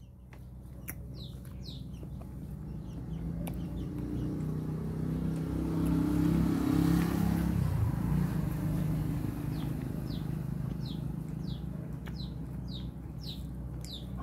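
A motor vehicle's engine passing by, growing louder to a peak about seven seconds in and then fading away. Short high bird chirps come at the start and again near the end.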